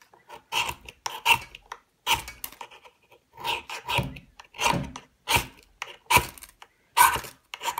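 Victorinox pocket knife's can opener scraped hard down a Light My Fire ferro rod, again and again: about ten short rasping strikes, the way sparks are thrown to light tinder.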